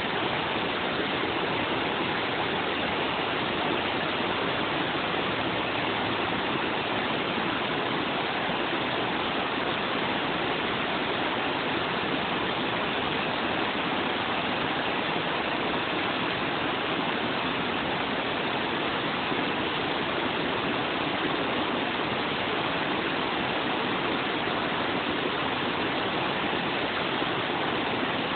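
River running high, its whitewater rushing steadily over rapids and a low concrete weir.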